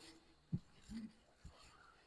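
Near silence: room tone, with a faint thump about half a second in and a faint short low sound near one second.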